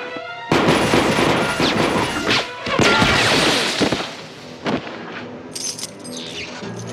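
Film fight sound effects: a sudden flurry of loud hits and crashes starting about half a second in and lasting some three seconds, over dramatic music, then dying down to a few sharp clicks.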